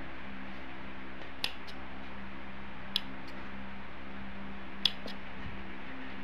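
Large metal scissors snipping leaves off a hibiscus stem: three short, sharp snips, each a quick double click, about a second and a half apart, over a steady low hum.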